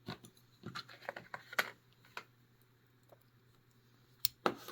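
Small metal clicks and taps of a Master Lock 130 padlock and lock picks being handled: a quick run of light clicks, then a pause, then two sharper clicks near the end.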